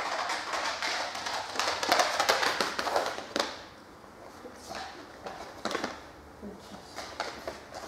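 A dog's claws tapping and scrabbling on a concrete floor as it runs, busiest in the first three seconds, then a quieter stretch with a few scattered taps.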